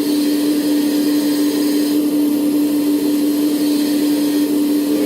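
Servonaut SMB sound module in an RC Komatsu PC490 excavator playing its simulated excavator sound as the boom is lowered: a steady hum with a hydraulic hissing sound over it.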